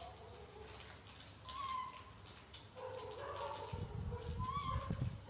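Young macaques giving short, high squeaky calls, one about one and a half seconds in and another near the end, over the crinkle of plastic snack packets being handled. A low rumbling handling noise joins in the last second and a half.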